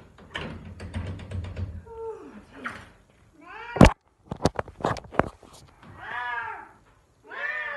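F4 Savannah cat calling: two drawn-out calls near the end, each rising then falling in pitch. Before them there is a run of clicks and clatters, with one loud sharp knock about four seconds in.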